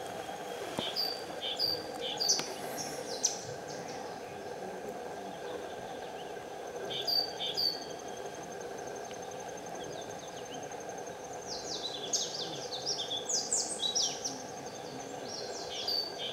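Small birds chirping in quick runs of short high calls, about a second in, again around seven seconds, and through the last five seconds, over a steady insect drone with a thin, high, continuous whine.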